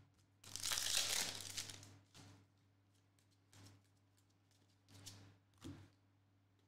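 Foil wrapper of an NBA Hoops trading-card pack being torn open and crinkled for about a second and a half, then a few brief, soft rustles of the cards being slid through by hand.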